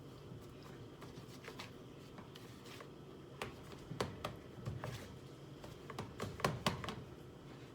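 Faint handling sounds of raw chicken pieces being dredged in flour: scattered soft clicks, taps and pats, with a cluster of sharper ones between about three and a half and seven seconds in.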